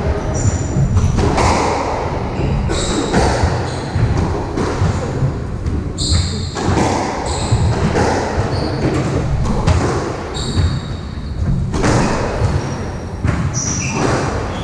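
Squash rally: the ball struck by rackets and smacking off the court walls again and again, with short high squeaks of shoes on the wooden floor as the players move.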